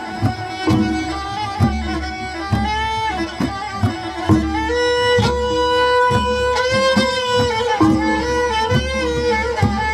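Music: a bowed string instrument plays a sustained melody with a wavering pitch over a steady drum beat of about two strokes a second.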